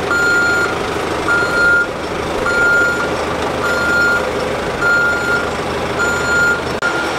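Telehandler's reversing alarm beeping steadily, about once a second, over its diesel engine running as it backs up towing a double-deck tram on a drawbar.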